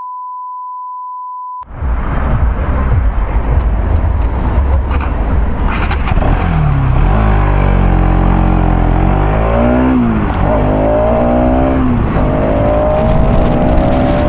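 A steady high bleep tone for about a second and a half, then a Bajaj Pulsar NS200's single-cylinder engine pulling away under wind rush. Its revs rise, drop at a gear change about ten seconds in, and climb again.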